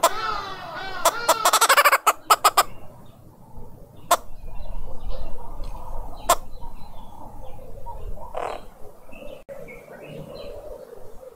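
Green wood hoopoes cackling, a loud rapid chatter that breaks into quick repeated notes and stops about three seconds in. After it come softer chirps and two sharp taps.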